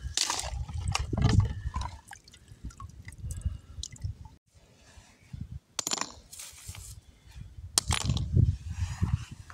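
Wet plaster mortar being worked, in irregular wet bouts of sound with a short lull about halfway through.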